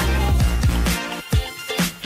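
Background music with a drum beat and deep bass.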